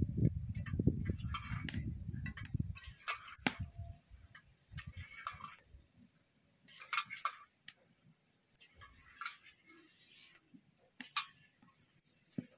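Handfuls of soaked soya chunks dropped into a stainless-steel mixer-grinder jar: scattered soft clicks and rustles, with a low rumble during the first two or three seconds.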